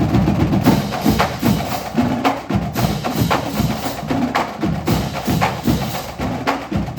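High school marching band drumline playing a fast, loud cadence of rapid drum and stick strikes.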